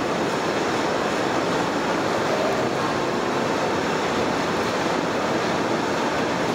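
Steady rushing background noise, even in level, with no distinct knocks or voices.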